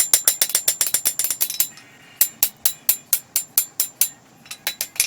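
Quick runs of hammer blows on hot coil-spring steel over an anvil, about six ringing strikes a second, with two short pauses between runs.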